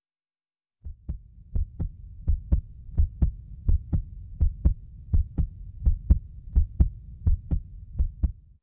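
A heartbeat: steady double thumps, lub-dub, about 85 beats a minute over a low hum, starting about a second in.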